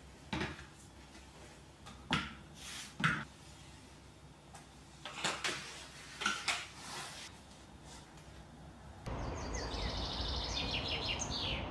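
Short scattered swishes of a cloth wiping glossy kitchen cabinet doors and a chrome bar-stool base. About nine seconds in this gives way to outdoor ambience: a steady hiss with small birds chirping rapidly.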